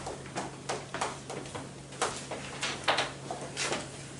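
Light, irregular taps and knocks, about two or three a second: chalk tapping on a chalkboard as the writing is finished, then shoes stepping on the classroom floor along the board.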